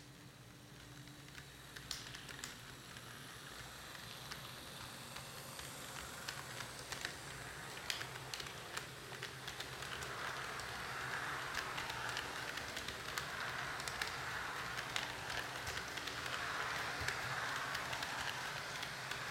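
HO scale model train, a diesel locomotive pulling passenger cars, running past on sectional track: a steady rattle of wheels on the rails with many small clicks and a faint low hum, growing louder as the cars roll close by in the second half.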